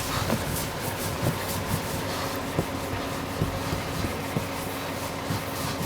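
A steady mechanical hum over a background hiss, with irregular light clicks and knocks.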